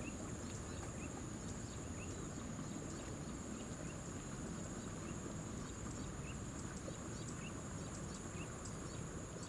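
Rice-paddy field ambience: a steady high-pitched insect drone, with a short chirp about once a second, over low background noise.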